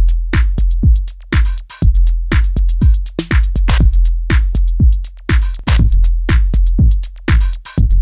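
Drum machine beat of booming kick drums and sharp snare and hi-hat hits, heard dry with the Thermionic Culture Ultra Vulture valve distortion unit bypassed, so without its added crunch.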